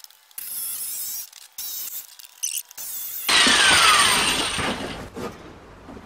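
Black & Decker two-speed jigsaw cutting a circle through a thin old fence board, running in short bursts that stop and start several times. After about three seconds a louder rushing noise with a whine falling in pitch takes over.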